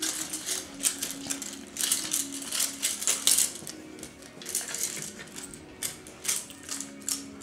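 Standard poodle puppies scuffling and playing with toys on a dog bed: a busy, irregular run of clicks, scratches and rattles.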